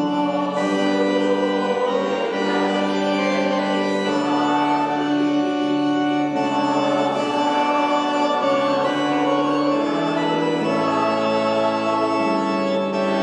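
Organ playing a hymn tune in slow, sustained chords that change every second or two, with no singing.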